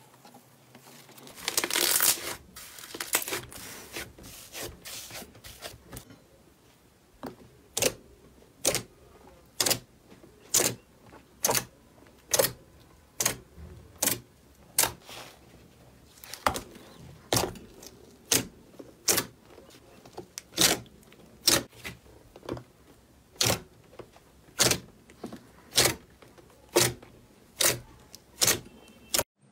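Green slime being stretched apart with a crackling, tearing sound about two seconds in. Then fingers press into thick glossy slime, making sharp pops about once a second as air pockets in it burst.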